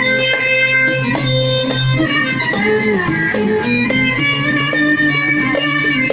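Instrumental music: a plucked-string melody over a steady percussion beat.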